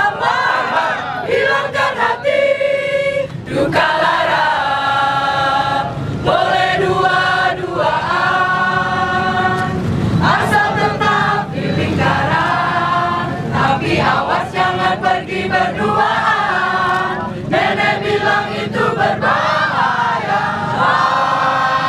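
An amateur choir of men and women singing a song together in Indonesian, in phrases of a few seconds with short breaks between them.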